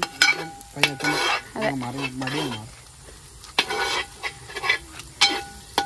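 A perforated metal ladle stirring sliced onions as they fry in a large metal pot. It scrapes and knocks against the pot's side several times, over a light sizzle. A man's low voice is heard briefly in the middle.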